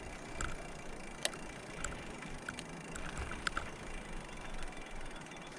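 Bicycle rolling fast downhill on a paved road: a steady rush of tyre and wind noise, with scattered light clicks.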